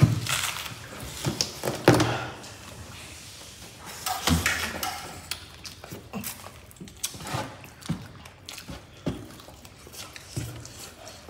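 Irregular thuds and knocks from hands working fried chicken and rice on a tabletop while eating, loudest near the start, about two seconds in and about four seconds in.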